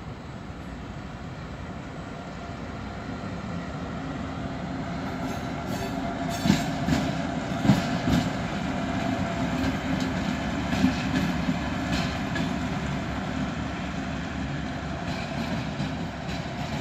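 Class 740 diesel locomotive running past. Its engine drone swells as it comes close and then slowly fades as it moves away. The wheels click over rail joints several times while it is nearest.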